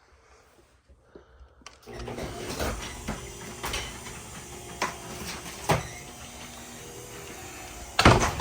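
Center console lid and trim of a Fox-body Mustang being opened, shut and handled: a run of sharp clicks and knocks about a second apart, the loudest near the end, over a steady low hum.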